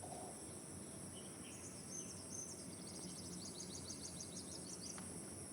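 Insects droning steadily at a high pitch, with a small bird giving quick high chirps through the middle, ending in a fast run, over a faint low background rumble.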